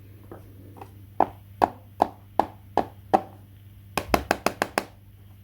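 Knife chopping on a cutting board: six even chops at about two and a half a second, then a quicker run of six sharper, crisper clicks. A steady low hum runs underneath.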